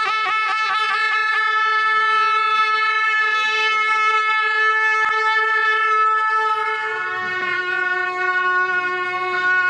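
A pair of gyaling, Tibetan double-reed horns, playing long held notes with wavering ornaments at the start, then stepping down to a lower note about seven seconds in.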